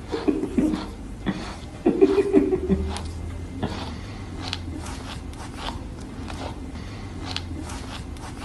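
A person laughing in two short bursts, one at the start and one about two seconds in, followed by faint scattered clicks.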